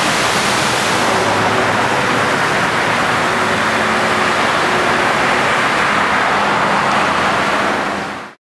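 Steady wash of traffic on a flooded road: tyres hissing and swishing through standing water, with faint engine hum underneath. Fades out near the end.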